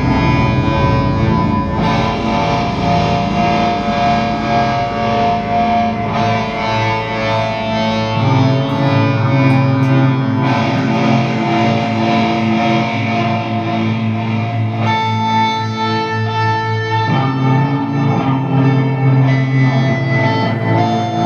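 Improvised instrumental music led by a distorted baritone electric guitar run through effects, holding sustained, droning tones over a low bass, with the notes shifting every few seconds.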